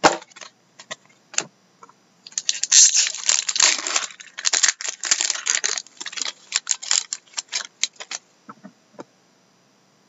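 Foil wrapper of a trading card pack crinkling and tearing as the pack is opened by hand. A few sharp card flicks come first, then dense crinkling for about six seconds that stops near the end.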